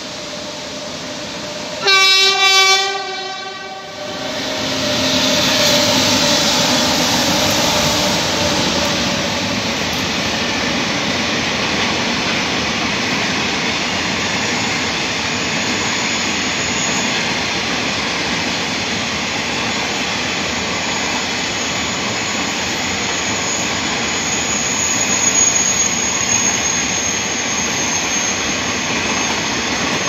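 Electric freight locomotive sounding its horn in one blast of about a second, followed by a long train of tank wagons rolling past: a steady rush of wheels on rails, with a faint high whine from about halfway.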